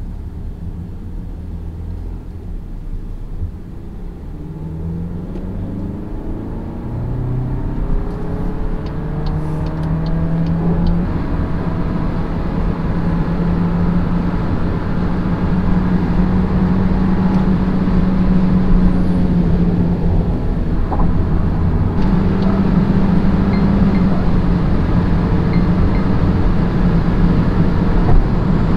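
VW Golf Mk8.5 1.5 eTSI four-cylinder turbo petrol car accelerating. The engine note rises over several seconds, then settles into a steady drone under road and tyre rumble, which grows louder as speed builds.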